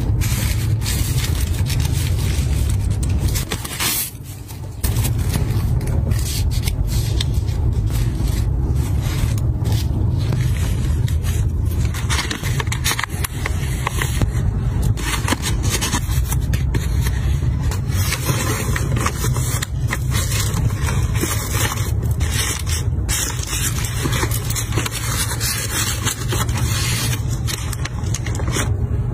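Close-miked paper, kraft envelope and cardboard being handled: continuous rustling, crinkling and scraping with many small sharp crackles, over a steady low rumble. It dips briefly about four seconds in.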